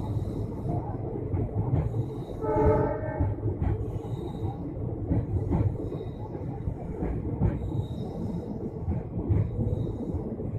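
Indian Railways passenger train running on, heard from an open coach door: a steady rumble of wheels on track with clicks as they cross rail joints and points. A short horn blast comes about two and a half seconds in.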